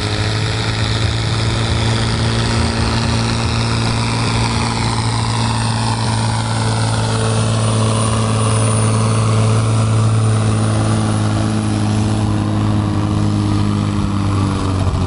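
BM Volvo diesel tractor engine running flat out at steady, high revs under full load as it drags a weight-transfer pulling sled, its exhaust smoking black.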